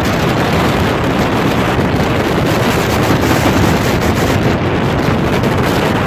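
Strong blizzard wind blowing across the microphone: a loud, steady rushing noise with no break.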